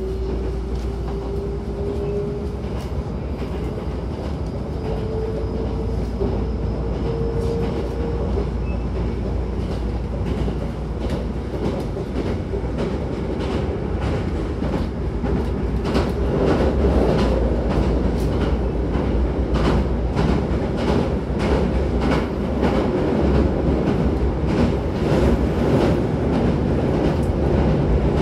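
Hankyu 9000-series electric train heard from inside the car while running: a motor whine rises in pitch over the first several seconds as the train picks up speed. Then the wheels clatter over rail joints with a steady rumble that gets louder about halfway through.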